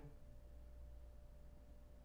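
Near silence: room tone with a faint steady low hum and a thin steady tone.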